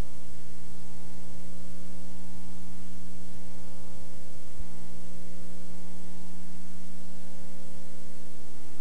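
Steady electrical hum made of several fixed tones over an even hiss, with one short click about halfway through.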